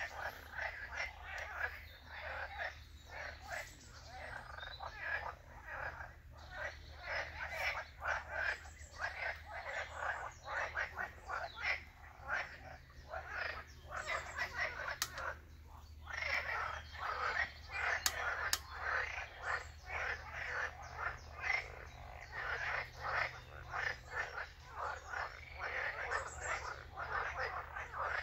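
A chorus of frogs croaking, many calls overlapping in a fast, continuous rattle, with a brief lull about sixteen seconds in.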